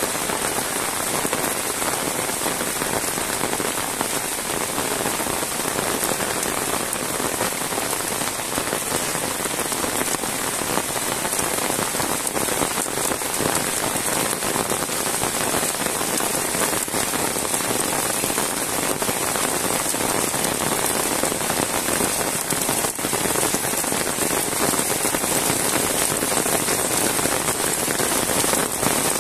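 Heavy rain falling steadily on a wet paved road and roadside grass.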